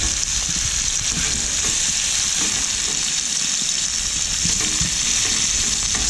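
Smash-burger patties sizzling in bacon fat in a frying pan over campfire coals, with a steady hiss. A small plastic spatula presses and scrapes them flat against the pan.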